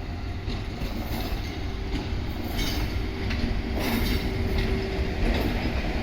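EF81 electric locomotive and a Suhafu 12 passenger coach rolling past with a steady low rumble and faint hum, their wheels clacking over rail joints several times.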